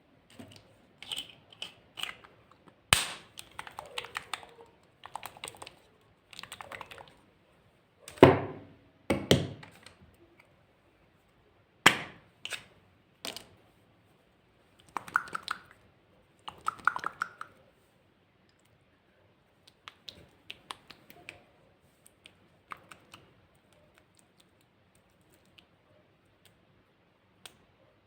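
Glossy slime being mixed and worked by hand, giving irregular sticky clicks, crackles and pops in clusters, with a few louder snaps; the clicks thin out and grow fainter near the end.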